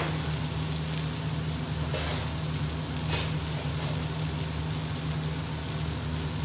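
Raw burger patties sizzling in a lightly oiled frying pan over a gas burner, with a steady low hum underneath.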